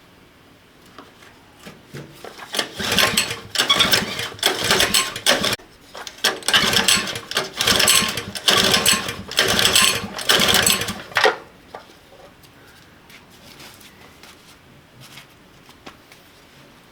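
A machine running in a series of short, loud, rapid clattering bursts. It starts about three seconds in and stops about eleven seconds in.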